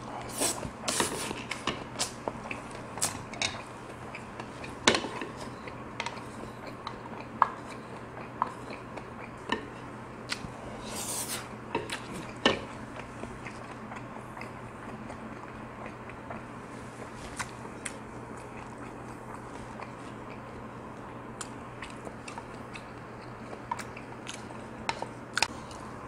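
A man eating noodles and Korean side dishes, with wet smacking and chewing and many short clicks in the first half and again near the end, and softer chewing in between. A steady low hum runs underneath.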